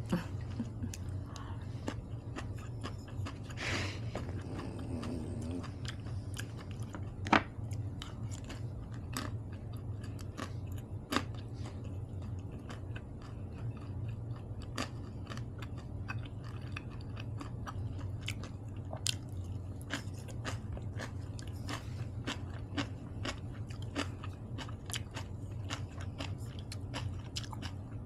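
A person chewing and biting food: a steady run of small mouth clicks and crunches from eating rice, seaweed soup and kimchi, with one sharper click about seven seconds in. A low steady hum runs underneath.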